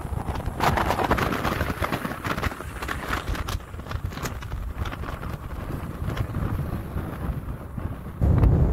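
Wind buffeting the phone's microphone as a low rumble, with crackling and rustling from about a second in to past three seconds; a stronger gust hits near the end.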